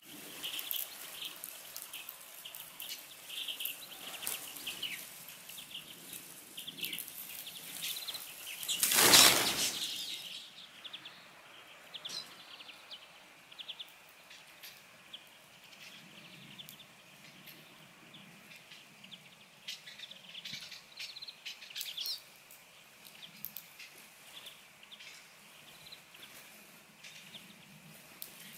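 Small songbirds at a garden bird feeder: scattered short chirps and calls throughout, with a loud rush of flapping wings about nine seconds in as the birds flush from the feeder.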